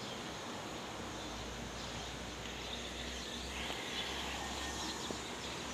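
Steady outdoor background noise with faint insect and bird chirps and a low hum.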